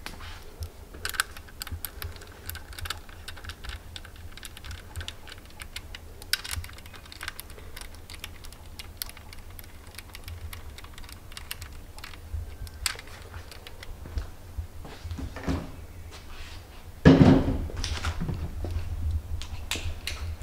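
Light, irregular metal clicks and clinks as an LS V8's connecting-rod caps and bolts are handled and fitted by hand, with a louder clatter about 17 seconds in, over a steady low hum.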